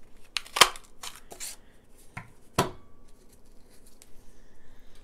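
Large lever tag punch pressed down to cut a tag shape from white cardstock: a few sharp clicks and snaps, the loudest about half a second in and another about two and a half seconds in, with paper rustling as the cardstock is handled.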